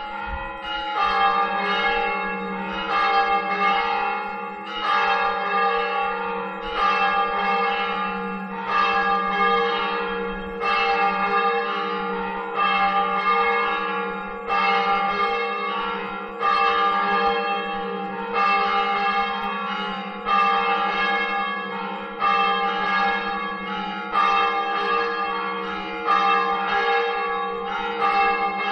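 Church bell tolling in an even, slow rhythm, a fresh stroke about every two seconds, each ringing on into the next over a steady low hum. It is the toque calling the village to Sunday Mass.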